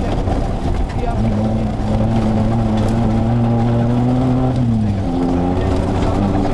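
Off-road rally car's engine heard from on board, running under load with its note climbing slowly, then dropping sharply about four and a half seconds in and settling at a new steady pitch, over rough noise from the track.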